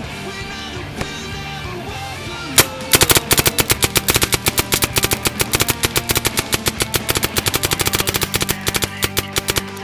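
Diablo Wrath paintball marker on an electronic trigger board, fired on semi-automatic. A single shot is followed by a rapid, even string of shots at about eight a second as the trigger is walked. The string stops just before the end.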